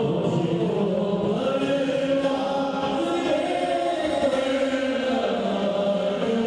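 Men's voices chanting devotional verses together in a slow melody, holding long notes that shift now and then to a new pitch.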